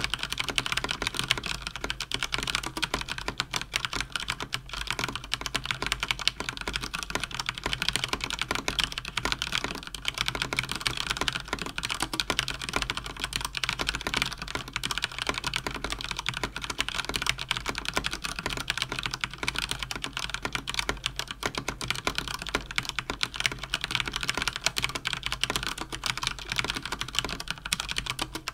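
Fast continuous typing on a mechanical keyboard with Cherry MX Speed linear switches (Cougar Attack X3 RGB): a dense, unbroken stream of key clacks at around 110 words per minute.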